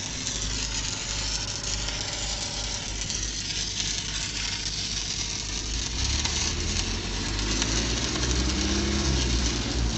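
Stick-welding arc crackling and hissing steadily on steel pipe, over the steady drone of an engine, which gets louder about six seconds in.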